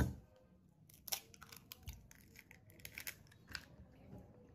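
A raw egg cracked on a drinking glass and emptied into it: a handful of faint taps and crackles spread over a few seconds.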